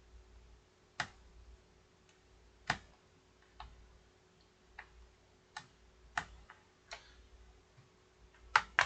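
Plastic snap clips of a laptop's case clicking loose one after another as the case is pried apart: about nine sharp, irregularly spaced clicks, the loudest two in quick succession near the end.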